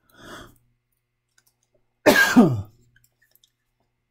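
A person coughs once, sharply, about two seconds in, after a quieter breath just before.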